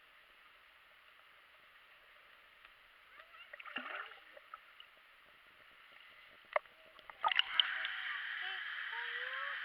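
Water splashing and bubbling: a faint steady rush, a splash about four seconds in, then louder bubbling and sloshing from about seven seconds in.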